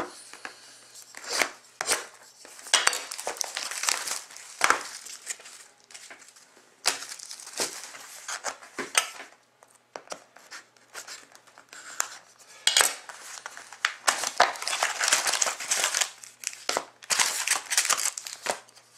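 Clear plastic shrink-wrap crinkling and tearing as a sealed box of trading cards is unwrapped and opened. Irregular rustles of paper and cardboard and short knocks from the box being handled come in and out.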